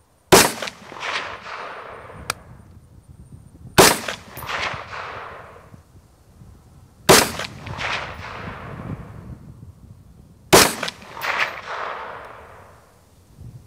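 AR-15 rifle chambered in 25-45 Sharps fired four times in slow, aimed succession, about three and a half seconds apart. Each sharp report is followed by a rolling echo that dies away over a second or two.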